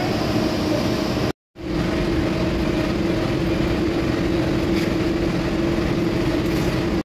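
Steady hum and whir of workshop machinery, an electric motor running with a constant low tone. It drops out for a moment about a second and a half in, then carries on unchanged.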